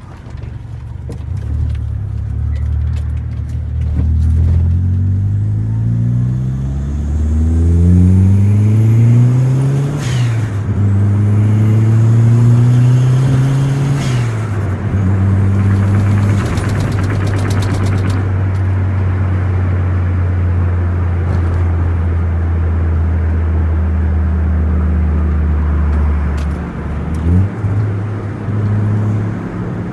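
Perodua Myvi's 1.3-litre four-cylinder engine with a bolt-on turbo, heard from inside the car as it pulls up through the gears. The engine note climbs, drops at gear changes about ten and fourteen seconds in, then holds at a steady cruise before another shift near the end. A faint turbo whistle rises with the revs, and there is a brief rapid flutter from the turbo around the middle.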